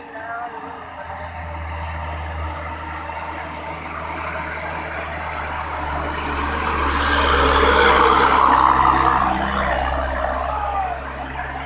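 Bus engine running with road noise, a steady low hum under a rushing hiss that builds to its loudest about two-thirds of the way through and then eases off.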